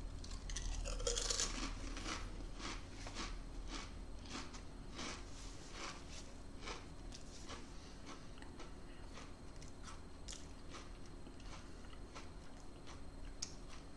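Close-up crunching and chewing of a mouthful of three Pringles potato crisps: a quick run of crisp crunches, about two or three a second, that grows fainter as they are chewed down.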